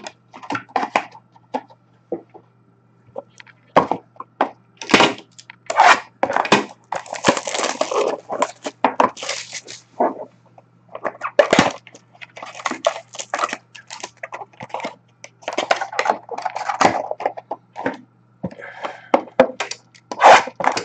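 A sealed trading-card box and its mini boxes being torn open and handled: an irregular run of crinkling, tearing rustles and sharp clicks of wrapper and cardboard.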